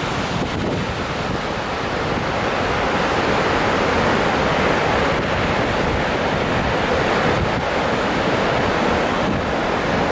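Cruise ship's wake churning and rushing steadily below the stern, a little louder after a few seconds, with wind on the microphone.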